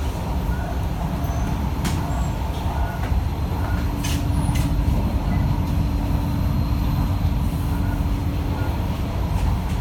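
Cabin noise of an SMRT C151B electric metro train running between stations: a steady low rumble of wheels on track, with a few short clicks and a steady hum that sets in for several seconds in the middle.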